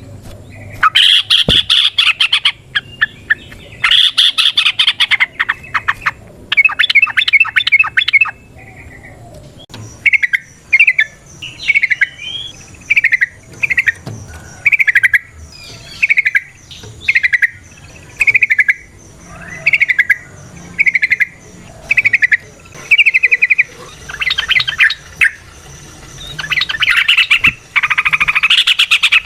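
Yellow-vented bulbul (trucukan) singing: bursts of rapid chattering trills, then a long run of short, slurred whistled notes at about one and a half a second, then rapid chatter again near the end.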